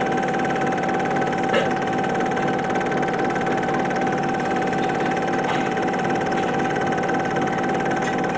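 Super 8 film projector running: a steady mechanical whir and hum with a clear high tone, and a few faint clicks.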